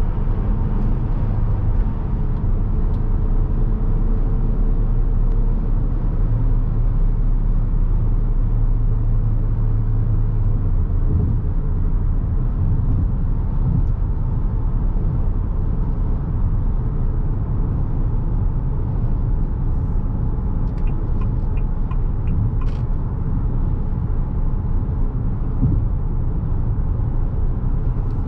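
Cabin noise of a Haval H6-GT with the 2.0-litre engine cruising at highway speed: a steady low rumble of engine and tyres on the road, with an engine drone that is strongest for the first ten seconds or so and then eases off. A short run of light ticks comes about 21 seconds in.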